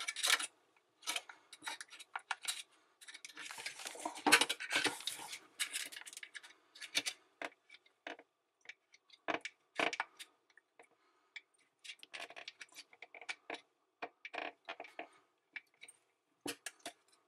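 Irregular clicks, taps and short scrapes of a screwdriver and gloved hands working a rubber sump seal down into place around the plastic sump in a dishwasher's stainless-steel base, with a denser run of scraping about four to five seconds in.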